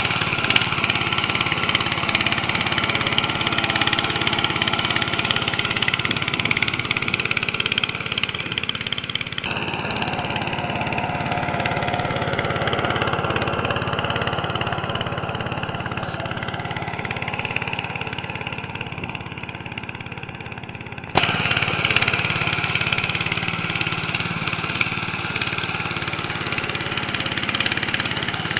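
Motor Sich MB-9E walk-behind tractor's engine running steadily under load while it pulls a drag harrow. The engine note changes abruptly twice, about ten seconds in and again about twenty-one seconds in.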